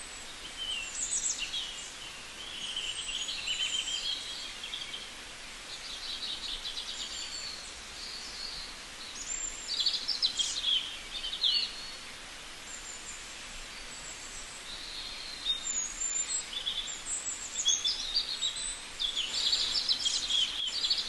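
Several small birds chirping and singing, with short high chirps, quick rising and falling whistles and rapid trills overlapping and coming and going over a steady background hiss. The calls are busiest near the end.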